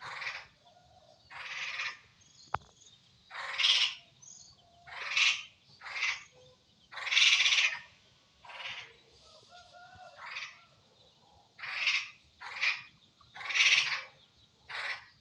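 An animal making repeated short, harsh rasping calls at irregular intervals of about a second, with a single sharp click about two and a half seconds in.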